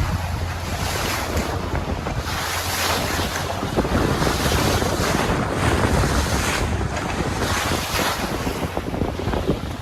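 Wind buffeting the microphone over the wash of the sea around a boat, surging every second or so, with a steady low hum underneath.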